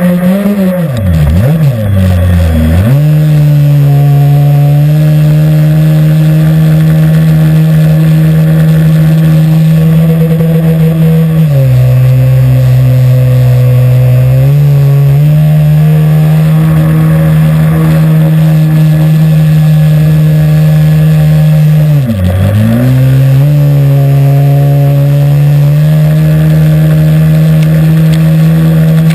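Small SuperTigre nitro glow engine of an Aquacraft R/C airboat running near full throttle with a high, steady buzz, driving the air propeller. Its pitch drops sharply and climbs back twice, about a second in and past twenty seconds, and it eases to a lower speed for a few seconds near the middle.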